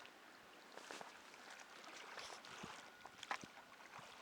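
Near silence: faint lakeside ambience with a soft wash of water and a few scattered short ticks, one a little louder about three seconds in.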